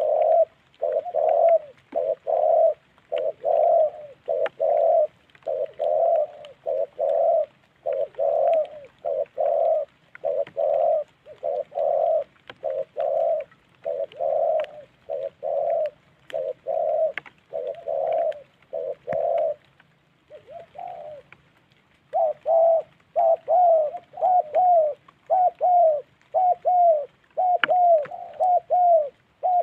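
Spotted dove cooing in a long series of short coos, a little more than one a second. After a pause of about two seconds, two-thirds of the way through, the coos come quicker, each falling in pitch.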